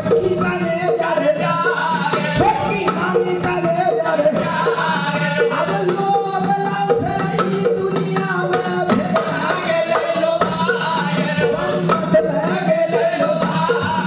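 Pamariya folk song from Mithila: male voices singing together over small two-headed barrel drums struck by hand in a steady rhythm.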